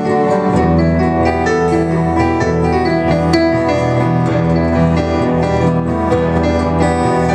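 Live keyboard, with a piano-like sound, and acoustic guitar playing an instrumental passage with no singing: held chords, with a low bass line coming in about half a second in.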